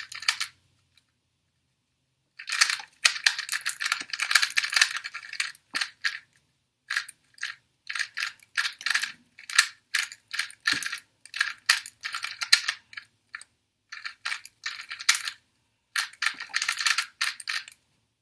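A Valk 2 M magnetic 2x2 speedcube being turned fast on its first turns: rapid runs of plastic clicking and clacking that start about two and a half seconds in, broken by short pauses.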